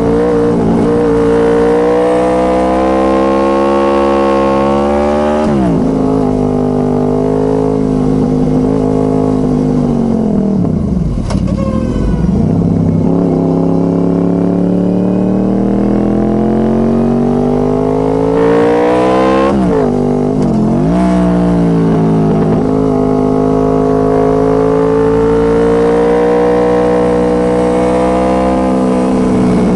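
Honda VFR800 Interceptor's V4 engine through a Two Brothers Racing exhaust, under way and changing pitch with the throttle. A quick dip and recovery about five seconds in, a deep fall to low revs around eleven seconds in before it climbs again, and two brief dips around twenty seconds in.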